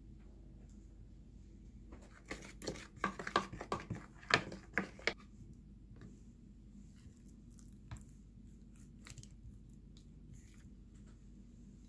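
Kitchen handling sounds: a quick run of about a dozen sharp clicks and knocks over some three seconds, then a few scattered taps, over a steady low hum.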